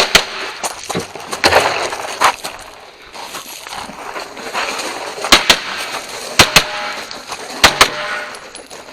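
A string of pistol shots from a shooter running a defensive pistol course of fire. There are scattered shots at first, a pause of about two seconds, then three quick pairs of shots (double taps).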